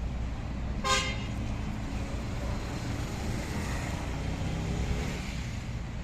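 Concrete mixer's engine running steadily with a low rumble, and a short horn toot about a second in.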